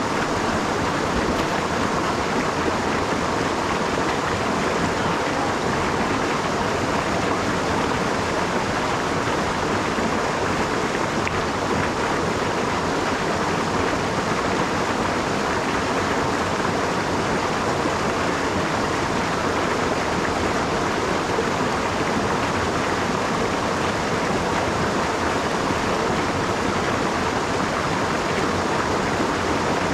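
A small rocky brook rushing steadily over a low drop and riffles of stones.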